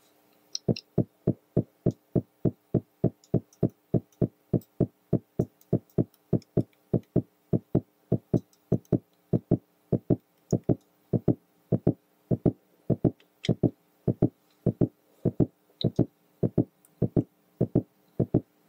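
Synthesized electronic kick drum from a Mutable Instruments Braids oscillator, played by the Schottkey Ratchet drum sequencer in a repeating pattern of about three hits a second with swing applied.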